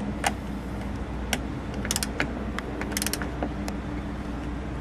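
Torque wrench ratcheting as an outboard motor lock is tightened toward 50 foot-pounds: irregular sharp metallic clicks, some in quick clusters, over a steady low hum.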